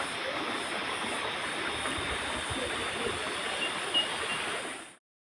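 Steady rush of running river water, with a faint high pulsing drone above it and a few short high chirps. The sound cuts off abruptly near the end.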